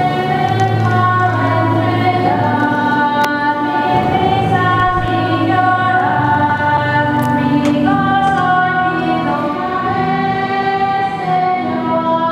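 Choir singing a hymn in long, held notes.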